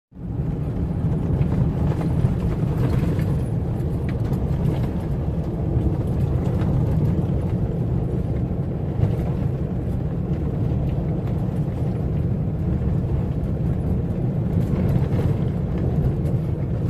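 Vehicle driving on a rough dirt road, heard from inside the cabin: a steady low rumble of engine and tyres on gravel, with a couple of small knocks from bumps.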